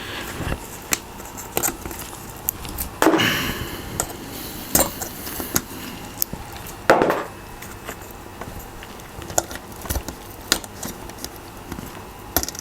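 Small plastic keyboard parts being handled and pried apart: scattered sharp clicks and knocks with a couple of brief scrapes, as keycaps and switches are worked loose and knock together.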